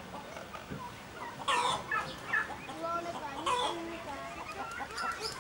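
Chickens clucking, with a loud call about one and a half seconds in and another about two seconds later.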